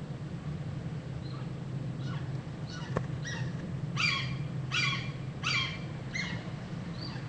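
Another bird calling: a run of about eight short, down-slurred calls at roughly two a second, growing loudest in the middle and then fading.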